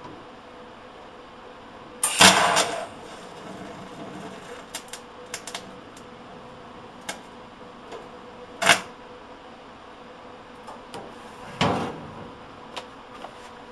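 Sharp metallic clanks and clicks from tools and steel sheet-metal parts being handled during TIG tack-welding on a truck cab: a loud cluster about two seconds in, single clanks near nine and twelve seconds, and lighter ticks in between, over a steady hum.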